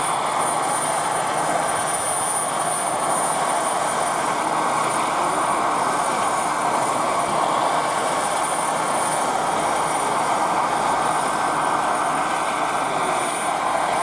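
Radio-controlled scale model helicopter flying: steady motor and rotor noise with a thin, high whine running over it.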